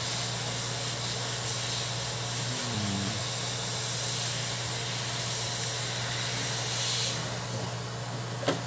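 Desoldering tool running with a steady hum and hiss while it lifts the injector driver IC off an engine control unit's circuit board. The hiss swells briefly about seven seconds in, and there is one sharp click near the end.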